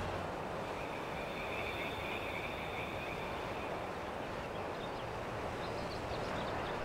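Quiet outdoor evening ambience: a steady background hiss, with a high, even trilling chorus for a couple of seconds near the start and a few faint high ticks later.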